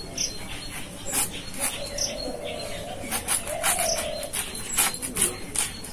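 A young, tender ash gourd being cut on a boti, a curved floor-mounted blade: a run of short, crisp cutting and scraping strokes as the gourd is pushed through the blade. Birds call in the background.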